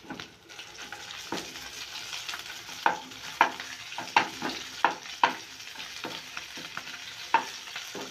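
Green chillies, coarsely crushed ginger-garlic paste and whole spices sizzling steadily in hot oil in a non-stick kadhai. A wooden spatula stirs them, with repeated sharp knocks and scrapes against the pan that are loudest in the middle.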